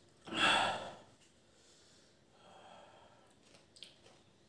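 A man's sharp, noisy breath out about half a second in, a reaction to the sting of the hot raw red onion he is eating, followed by faint breathing.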